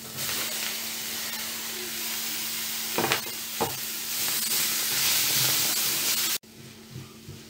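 Chopped tomatoes going into a pan of onions frying in ghee, sizzling as they are stirred with a spatula. The sizzle grows louder once the tomatoes are in, with two sharp knocks about three seconds in, and cuts off suddenly near the end.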